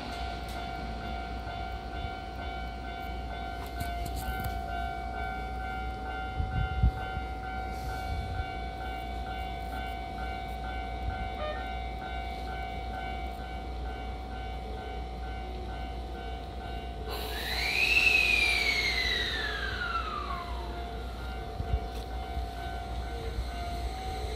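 Keio 5000 series electric train standing at the platform with a steady electrical whine and low hum. About 17 seconds in there is a sudden hiss and a whining tone that falls steadily in pitch over about three seconds, the train's equipment starting up as it gets ready to pull away.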